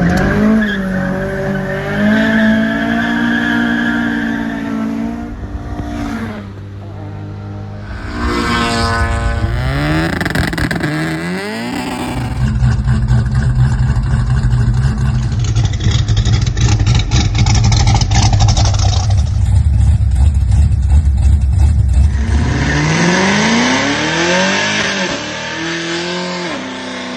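Car engine revving, its pitch climbing and falling again and again, with a long loud stretch of hard running in the middle and more rev sweeps near the end.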